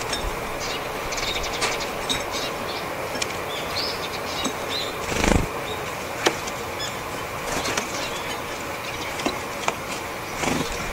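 Japanese tits' wings whirring in short flurries as they flutter in to and away from a seed feeder close by, twice, about five seconds in and again near the end. Short high call notes sound here and there in between.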